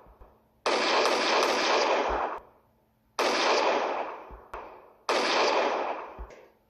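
Film sound-effect gunfire: three separate loud bursts about two seconds apart, each starting suddenly and fading out over about a second and a half.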